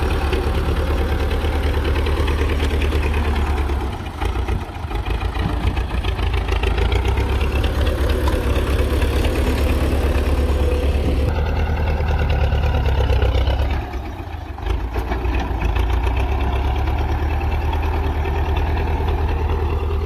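Diesel engine of a tractor-mounted front loader working close by, running hard as it shifts sand, easing off briefly about four seconds in and again near the middle.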